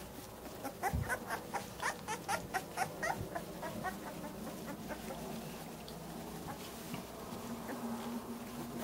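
Greater Swiss Mountain Dog puppies squeaking: a rapid run of short, high squeaks, about five a second, for two to three seconds starting about a second in, with a low steady hum beneath.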